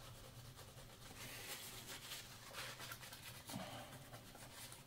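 Faint rubbing and scratching of a cloth being wiped over a graphics card's GPU chiplets, cleaning off the old thermal paste.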